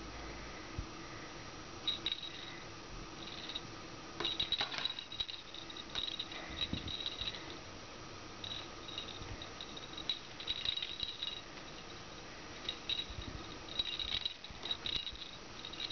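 Kitten batting and biting a hanging feather toy: bouts of light jingling and clicking from the toy, starting about two seconds in and repeating through the rest.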